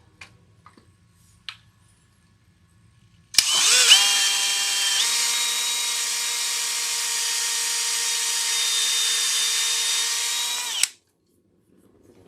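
Power drill running steadily for about seven seconds, spinning up sharply at the start and stopping abruptly, as it works a long driver bit into a hardwood bench. A few faint clicks come before it.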